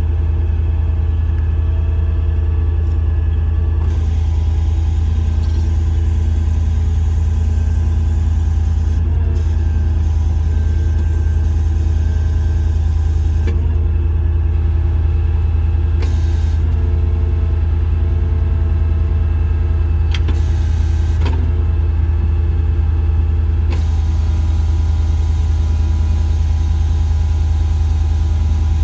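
Engine running steadily to power an Acker PT-22 core drill rig's hydraulics, with a hiss that starts and stops several times and sharp clicks as the drill's control levers are worked.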